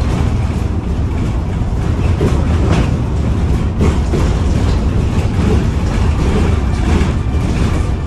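Interior noise of a Foton eBus U12 SC battery-electric city bus on the move: a steady low rumble from the road, with scattered light knocks and rattles.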